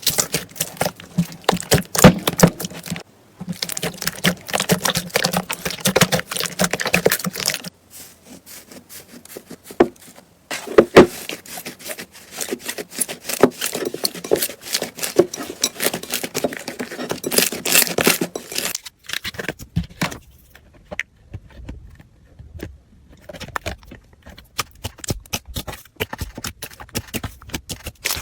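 Slime being squeezed and worked by hand, giving dense runs of sticky clicks and crackles. These come in several stretches separated by short breaks.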